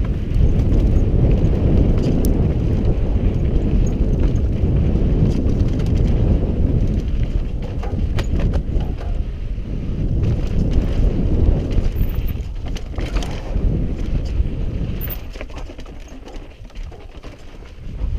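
Mountain bike descending a steep, rocky, sandy trail at speed: wind rushing over the microphone and tyre rumble, with frequent clicks and rattles as the bike bounces over rocks and ruts. It is quieter for a couple of seconds near the end.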